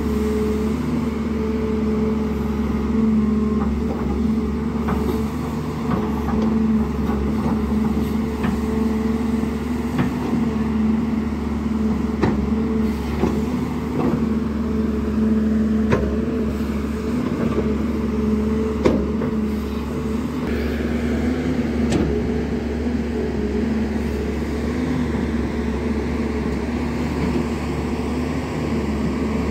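JCB 205 NXT tracked excavator's diesel engine running steadily as it digs soil, with a few sharp knocks scattered through as the bucket and arm work.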